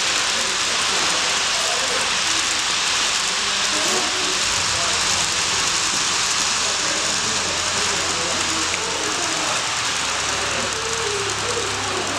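Steady hiss with faint voices in the background, and a low hum that comes in about four and a half seconds in.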